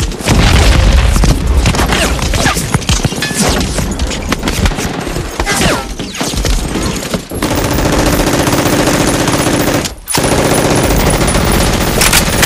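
Gunfire sound effects: rapid, dense bursts of automatic fire, joined by music from about seven seconds in, with a brief break near ten seconds.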